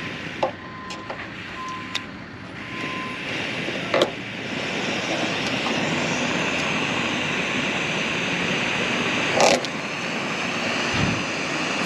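JetBoil backpacking stove's gas burner running with a steady hiss that builds over the first few seconds, with a few sharp clicks and knocks.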